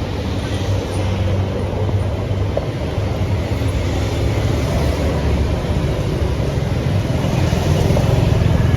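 Motor vehicle engine and road noise: a steady low rumble that grows slightly louder toward the end.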